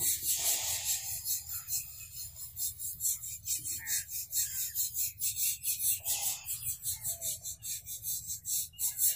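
A broad curved knife sawing horizontally through a loaf of crusty focaccia. The blade rasps against the crust and crumb in quick, even back-and-forth strokes.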